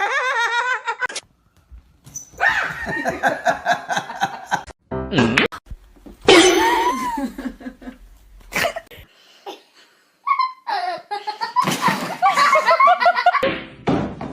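Laughter over music in a run of short clips, broken by abrupt cuts with brief silences between them.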